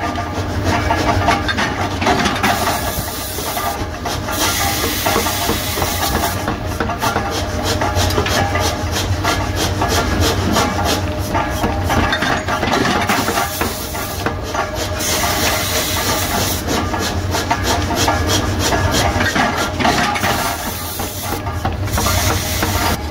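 Forging press hot-forging a steel clutch-gear blank, with a steady, loud mechanical din and a hiss. Stretches of rapid, even clatter come through it.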